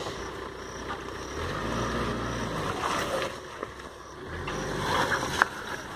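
Tata Safari Storme 4x4's diesel engine pulling the SUV through slushy mud, with the tyres churning through the mud. The engine note swells twice, about a second and a half in and again around four and a half seconds.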